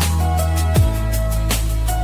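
Instrumental passage of a slow pop ballad with no singing: held keyboard or synth notes over a steady deep bass, light ticking cymbals, and one deep drum hit falling in pitch about a second in.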